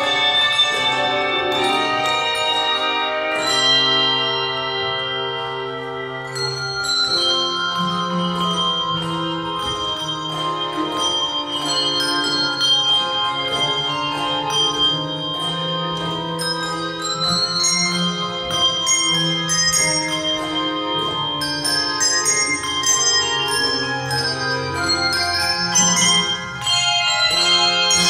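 Handbell choir playing: many bells struck in turn, their notes ringing on and overlapping, with long low notes held underneath.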